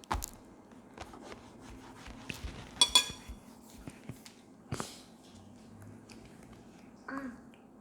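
Mealtime sounds: scattered light clicks of spoons and chopsticks on bowls and dishes, with a sharp ringing double clink about three seconds in. A short hummed "mm" comes near the end.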